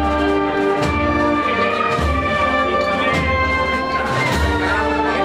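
Processional brass band playing a slow march, with held brass chords over low bass notes and the chords changing every second or so.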